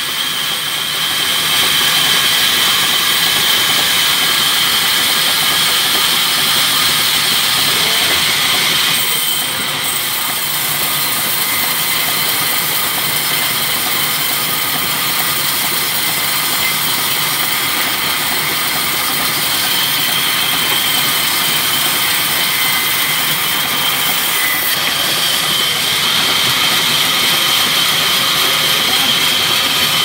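Vertical band saw running steadily and cutting through a rain tree log, with a high whine over the machine noise. The whine eases about nine seconds in and grows stronger again near the end.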